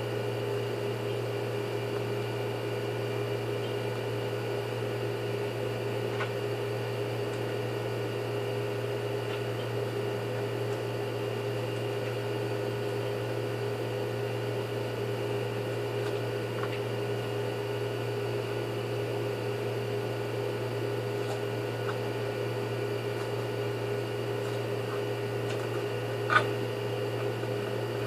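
A steady mechanical hum with several fixed tones, even in level throughout, and one sharp click near the end.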